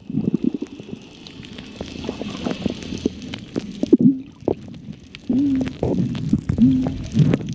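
Underwater sound picked up by a submerged camera: a low, gurgling rumble of water against the housing with many sharp clicks, a soft hiss about two seconds in, and three short, low muffled hums in the second half.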